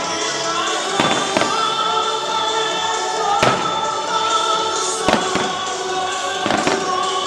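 Aerial fireworks shells bursting, about six sharp bangs, over loud show music with long held notes.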